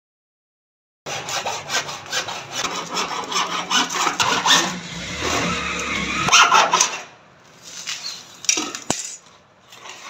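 Hand hacksaw cutting through a white PVC rain pipe with rapid back-and-forth strokes, starting about a second in. The sawing stops about seven seconds in, followed by lighter knocks and rubbing as the cut pipe is handled.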